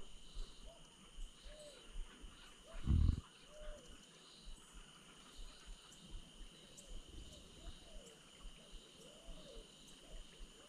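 Wild animals calling: many short rising-and-falling calls repeat about once a second over a steady high drone. One low thump about three seconds in is the loudest sound.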